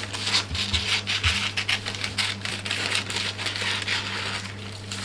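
Scissors cutting baking paper around a thin round of dough: a run of short crisp snips with the paper crinkling and rustling.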